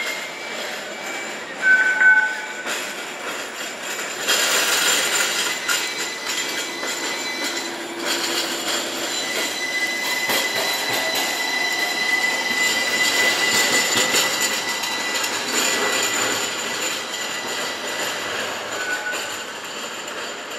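Low-floor streetcars running on street track, their wheels squealing on the rails in steady high-pitched tones as they round curves, over a continuous rolling rumble. A brief loud tone comes about two seconds in, and a long steady squeal runs from about ten seconds in.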